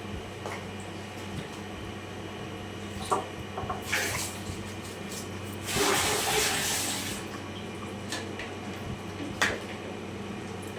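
Kitchen work sounds: a few light knocks, and about six seconds in a brief rush of running water lasting about a second and a half, over a steady low hum.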